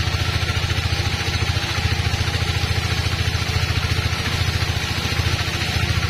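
Band sawmill running, a steady low drone with a rapid, even pulse, as its blade saws through a squared timber.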